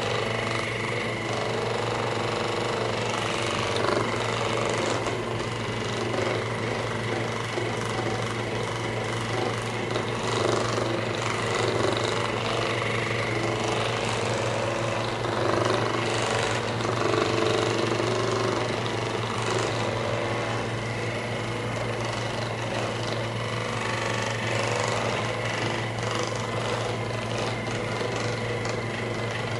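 Handheld percussive massage gun running steadily on a patient, a buzzing rapid hammering that swells and eases slightly as it is moved over the body.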